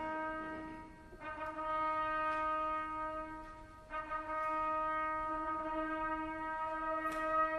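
Instrumental music: a single low note held steadily with rich overtones, dropping away briefly about a second in and again just before four seconds, then resuming at the same pitch.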